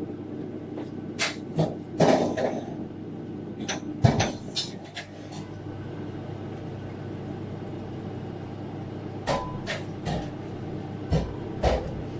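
Kitchen utensils and dishes knocking and clinking, a spoon against a bowl and containers set down, in scattered clusters about a second in, around four seconds in and near the end, over a steady low hum.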